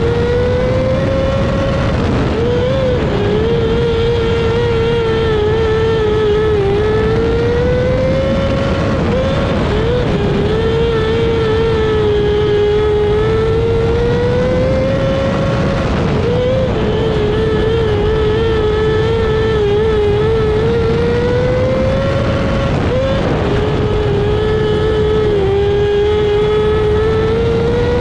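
Micro sprint car's 600cc motorcycle engine at race speed, heard on board over wind and dirt noise. The engine pitch climbs along each straightaway and dips briefly as the throttle lifts into the turns, four times, about every seven seconds, lapping a small dirt oval.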